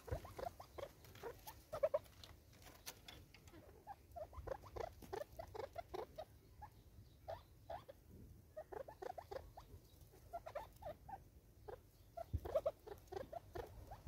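Game bird pecking seed from a plastic bottle feeder: many soft, irregular little taps and rustles, with a short pause near the middle.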